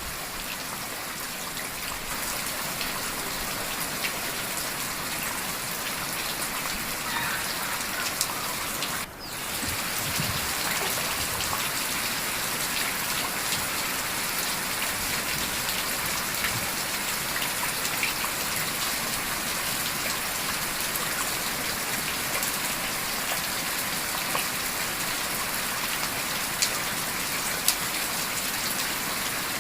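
Steady heavy rain falling, an even dense hiss that dips sharply for an instant about nine seconds in and comes back a little louder. A few sharp ticks stand out near the end.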